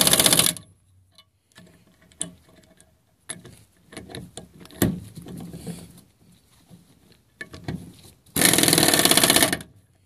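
Air impact wrench hammering the ball-tube lock nuts down into a Ford 6.0L Powerstroke diesel's high-pressure oil rail until they bottom out: a burst of rapid hammering that stops about half a second in, light clicks and knocks of the socket and parts, then a second burst of a little over a second near the end.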